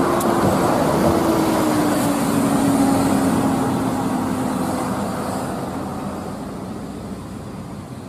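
Coach bus driving past and away, its engine drone sliding slowly down in pitch and fading over the last few seconds.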